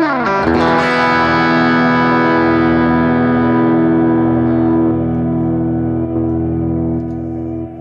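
Electric guitar through a BOSS GT-1000 with its Boss Comp compressor (CS-3 model) and a boost on. Notes slide down into a chord right at the start, and the chord rings with long sustain, slowly fading toward the end.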